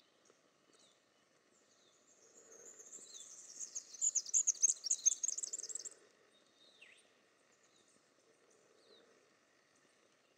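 A small songbird's high, fast trilling song that swells over about four seconds and then stops abruptly, followed a moment later by a single short downslurred call, with faint scattered chirps around it.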